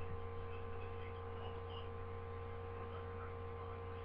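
Steady electrical mains hum with a faint hiss, with no other sound.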